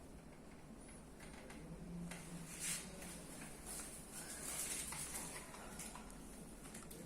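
Hands sliding and rubbing over skin during a deep-tissue massage: faint, soft swishing friction sounds, a little stronger about two and a half seconds in and again around four to five seconds in, over a low steady hum.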